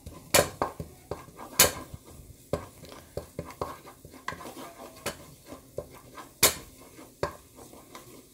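A wooden spatula knocks and scrapes against a ceramic-coated pot while stirring garlic frying in a little oil. The sound is a run of irregular sharp clicks and knocks, with three louder knocks: one early, one about a second and a half in, and one about six and a half seconds in.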